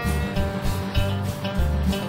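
Background music with guitar over a steady low beat.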